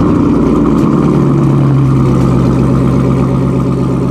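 Ford Mustang's engine running loud at a steady idle.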